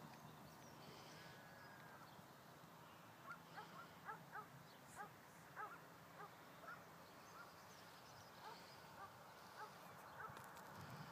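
Near silence: faint outdoor background, with a run of faint short chirps from about three to ten seconds in.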